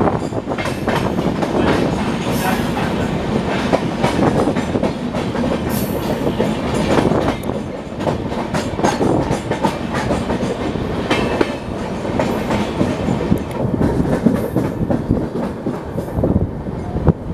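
Gatimaan Express LHB passenger coaches running at high speed, the wheels clattering continuously over rail joints and points, with rushing wind and track noise.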